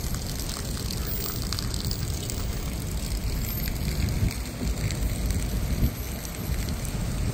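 Small outdoor fountain's water jets splashing steadily into a shallow basin.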